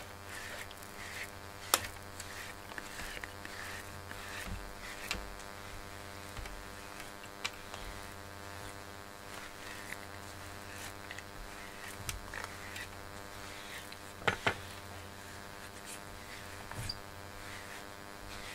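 A rubber-bristled grooming brush stroked repeatedly through a cat's thick coat, giving faint soft rustles. A few sharp clicks stand out, the loudest a pair about fourteen seconds in, over a steady low hum.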